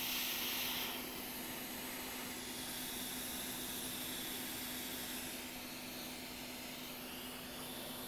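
Hot air rework station blowing a steady hiss over a constant low hum, the airflow heating a MOSFET on a MacBook logic board. The hiss drops a little about a second in.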